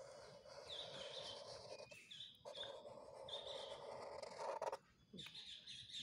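Felt-tip permanent marker drawing on paper: a faint scratchy rubbing of the tip with short high squeaks during the strokes, broken twice by brief pauses as the pen lifts.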